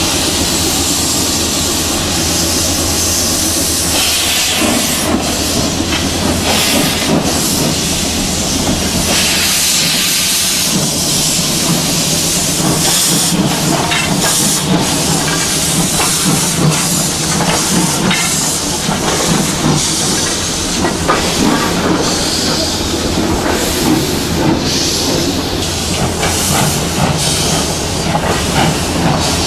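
Steam locomotive passing at close range, hissing loudly as steam blows from its open cylinder cocks, with exhaust chuffs. Its tender and passenger carriages then roll by.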